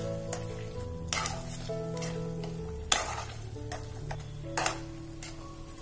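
Steel spatula stirring thick corn flour halwa in a kadai, with a few sharp scrapes against the pan and the halwa frying softly in ghee, at the end of cooking. Background music with held notes plays under it.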